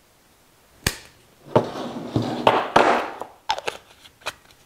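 A sharp snip, then rustling, scraping and a few small clicks as hands work the stripped end of a power cord, cutting away its filler string.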